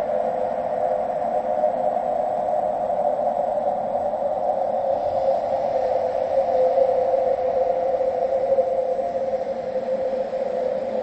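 Eerie ghost sound effect: a steady drone of radio-like static, its hiss gathered in a mid-pitched band with a faint hum, wavering slightly but never breaking.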